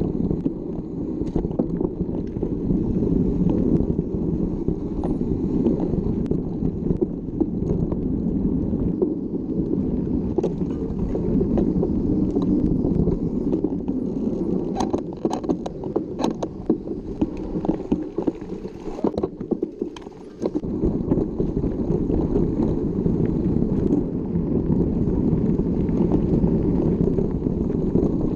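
Wind rushing over the microphone of a camera on a moving mountain bike, with rumble from the ride. In the middle there is a run of sharp clicks and rattles, and the noise drops briefly about two-thirds of the way in.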